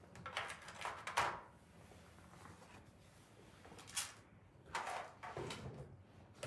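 Faint handling noises as small kit items are picked up and moved: a few short rustles and light knocks, near the start, about four seconds in and again about a second later.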